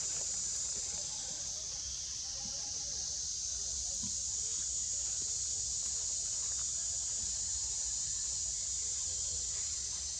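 A steady, high-pitched drone of forest insects, unchanging throughout, with a low rumble underneath.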